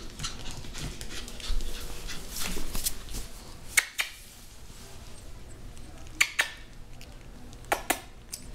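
Japanese Chin puppy moving about and playing on a hard tiled floor, with three pairs of short, sharp clicks or taps spaced through the middle and end.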